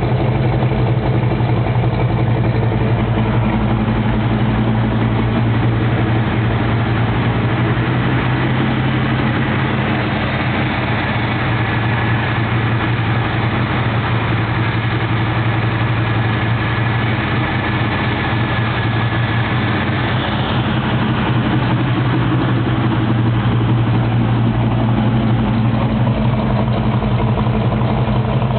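Mopar 440 six-barrel big-block V8 idling steadily through its exhaust, with a slight dip in level around the middle.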